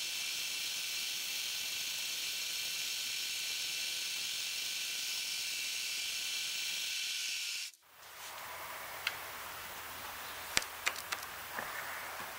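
Milling machine running at 2000 RPM, a single-flute down-cut spiral end mill cutting plywood: a steady high hiss. It cuts off suddenly about eight seconds in, leaving a low hum and a few light clicks.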